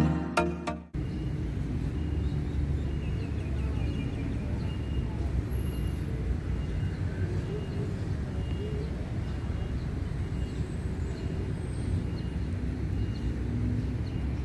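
Intro music cuts off about a second in. Then a steady low outdoor rumble with a faint high chirp repeating about once a second.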